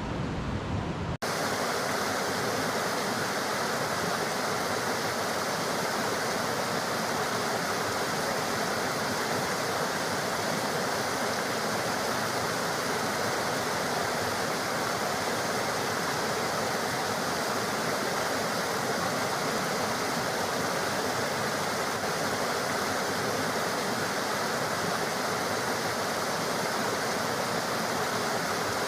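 Waterfall: a steady, even rush of falling water. About a second in, a lower rumble cuts off abruptly and the rush takes over.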